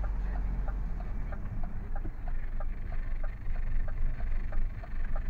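Lorry's turn indicator ticking steadily, about two and a half ticks a second, over the low rumble of the lorry's engine heard from inside the cab.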